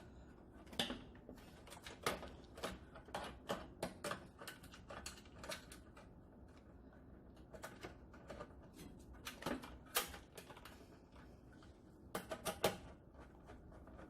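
Irregular sharp clicks and taps of washers, fasteners and a tool being handled while the parts are refitted, with a quick run of clicks near the end.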